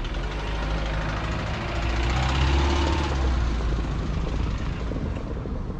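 A motor vehicle passing on the road: engine and tyre noise that builds to its loudest about halfway through, then fades.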